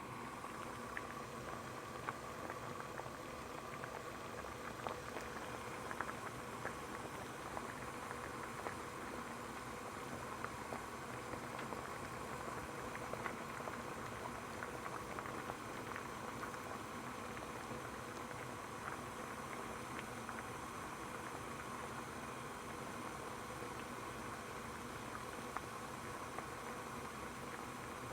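Water boiling at a steady bubble, a continuous burble with many small pops and clicks of bursting bubbles.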